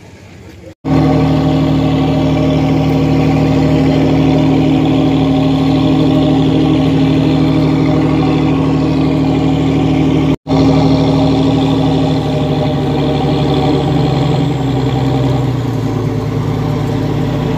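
Boat engine running steadily, heard loud and close on board: an even, droning note that holds its pitch and shifts slightly near the end.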